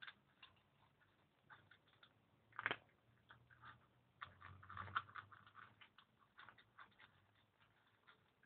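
Domestic cat eating dry kibble from a plate: a faint run of irregular small crunches, with louder ones near three seconds in and a cluster around five seconds in.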